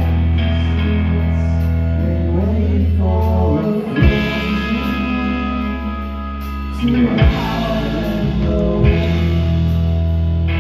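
Live rock band playing loudly: electric guitar, bass guitar and drums, with a male singer. The deep bass drops back for a few seconds in the middle while the singing comes forward.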